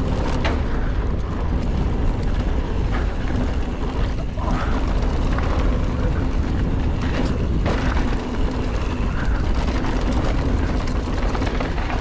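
Giant Trance 3 full-suspension mountain bike ridden fast down a dusty dirt trail: a steady low rumble, with the bike clattering over bumps now and then.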